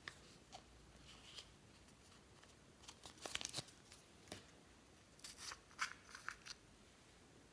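Faint crackling and clicking of slime with floam beads being squeezed and worked by hand, in two short clusters: one about three seconds in, the other from about five to six and a half seconds in.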